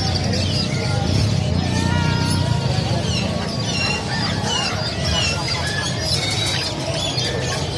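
Many small caged birds chirping, short high calls overlapping throughout, over a steady low din of background market noise.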